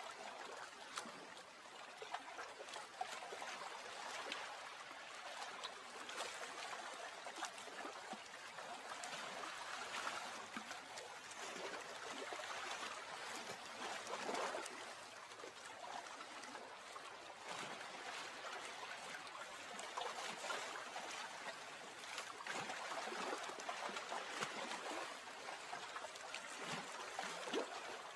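Lake water lapping and trickling: a steady wash of water with many small splashes and drips throughout.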